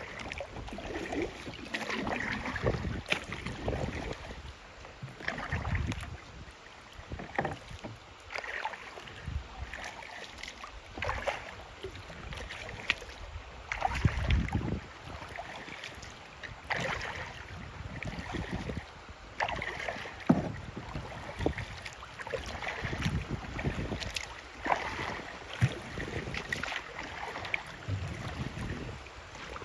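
Kayak on a river: water splashing and knocking against the hull at irregular moments every second or two, over a steady wash of water, with wind buffeting the microphone in low gusts.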